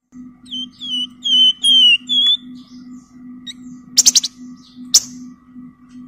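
Caged wergan Jawa songbird singing a quick run of about six clear, high whistled notes, each slurring slightly downward, in the first half. Two sharp clicks follow about four and five seconds in, over a steady low hum.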